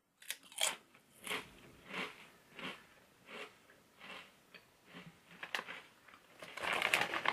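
A crunchy crinkle-cut potato chip is bitten into, then chewed, with short crunches about every two-thirds of a second. Near the end there is a longer rustling noise.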